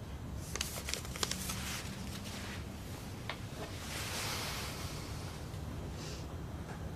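Light handling sounds: soft rustling and a few small clicks, several close together about a second in and one a little after three seconds, over a low steady room hum.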